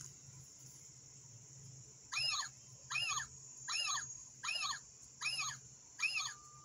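Solar-powered plastic owl decoy playing its electronic owl call: a string of six short, high squealing calls, each rising and falling, about one every 0.8 seconds, starting about two seconds in, over a steady faint high whine.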